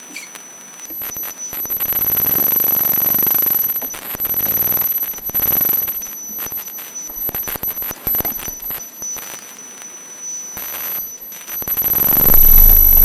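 Electromagnetic interference from a Rockwheel GT16 V3 electric unicycle's motor controller, picked up by a pickup microphone taped on the board. Two thin, steady high whines run under buzzing electrical noise that swells and fades in surges as the motor is driven, and grows loud near the end.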